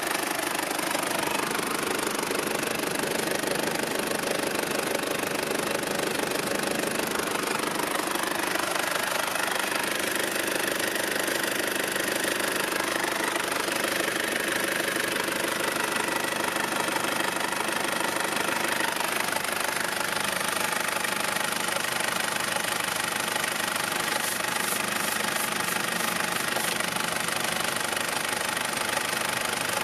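Mitsubishi Pajero's 2.8-litre four-cylinder turbo-diesel idling with a steady diesel clatter, heard close up in the open engine bay.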